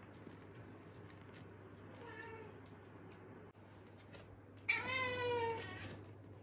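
House cat meowing: a faint short meow about two seconds in, then a loud, longer meow about five seconds in.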